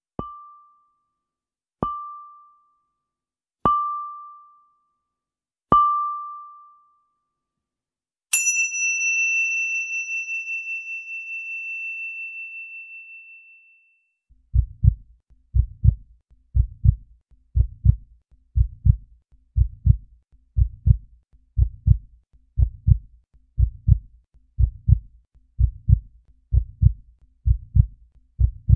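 Four short high pings about two seconds apart, then a single bright bell-like ding that rings out for several seconds. From about halfway in, a steady heartbeat thump, a low double beat about once a second.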